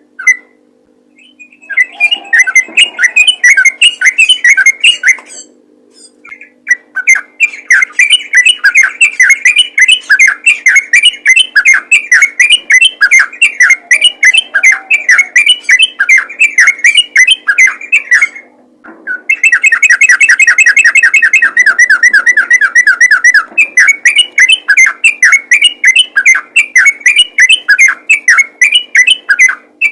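Yellow-vented bulbul (trucukan) singing a fast, continuous chattering run of short notes, the rapid 'ropel' song used to call other bulbuls. It breaks off briefly about a second in, around six seconds in and again near nineteen seconds, with a faint steady hum underneath.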